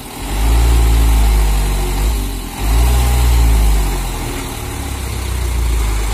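Mitsubishi Colt Diesel truck's diesel engine revving hard twice, each surge about two seconds, then running lower and steadier, as the palm-fruit-laden truck strains to pull out of the mud it is stuck in.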